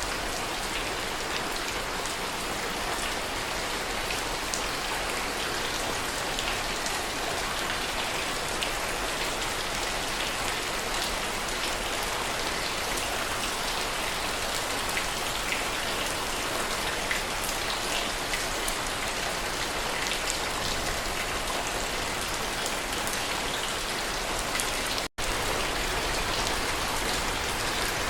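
Steady heavy rain, an even hiss dotted with the patter of individual drops. Near the end the sound cuts out for a split second and then resumes.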